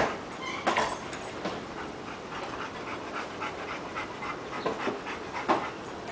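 A dog panting in quick, even breaths, with a few louder sounds about a second in and again around four and a half and five and a half seconds in.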